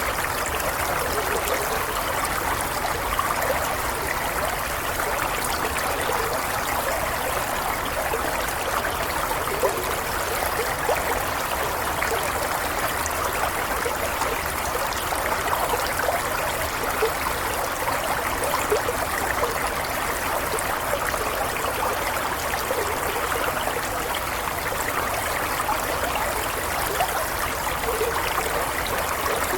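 Running water flowing steadily, an unbroken rush with small splashing specks and no change in level.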